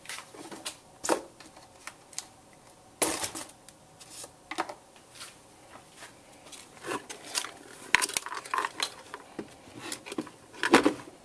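Irregular hard plastic clicks and knocks as a Turnigy 9X RC transmitter is handled and turned over on a wooden bench, with a louder knock near the end.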